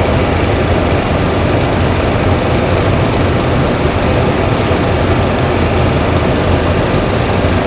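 Steady, loud hum of Boeing 737 Classic cockpit background noise, with a few faint clicks of keys being pressed on the flight management computer's keypad.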